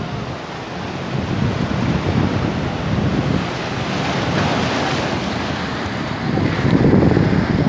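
Sea surf breaking and washing in over shoreline boulders, a steady rush that swells in surges, the loudest near the end. Wind buffets the microphone underneath.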